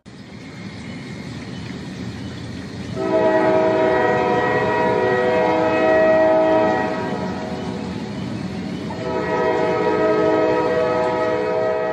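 Steam locomotive whistle blowing two long, steady blasts of several notes at once, each about four seconds, over the noise of the train running.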